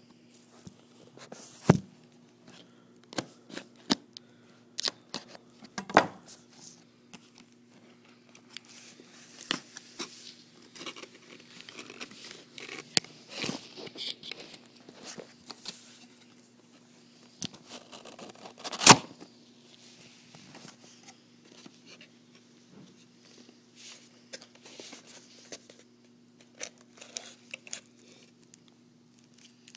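Cardboard box being handled and opened: packaging rustling and crinkling, with a few sharp knocks, the loudest about nineteen seconds in. A faint steady hum lies underneath.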